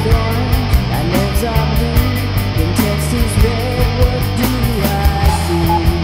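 Rock band song: a woman singing over electric guitar, bass and drums with a steady beat.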